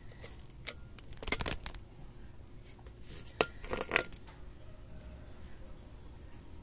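A few sharp clicks and knocks as a freshly cast block of beeswax is handled and lifted off a wet concrete floor. The knocks come in a cluster about a second in and again around three to four seconds in.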